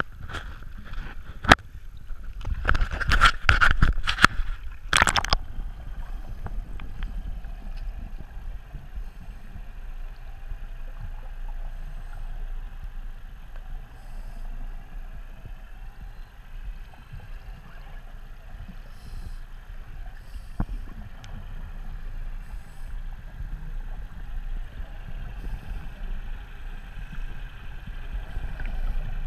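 An action camera splashing and knocking as it plunges into the lake over the first five seconds or so. After that comes muffled underwater sound from inside its housing: a low rumble with a faint steady drone, and now and then a short faint burst of divers' exhaust bubbles.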